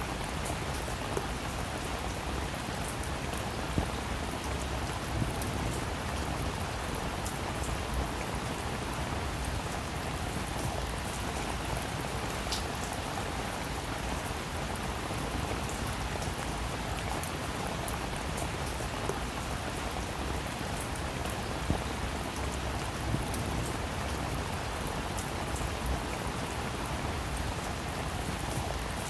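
Steady rain falling, with scattered individual drops striking close by as sharp ticks now and then.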